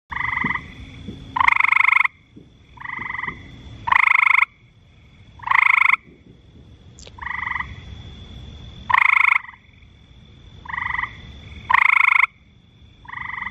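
Male frog giving its advertisement call to attract females: about ten croaks spaced a second or two apart, short softer notes alternating with longer louder ones. A faint steady high tone runs in the background.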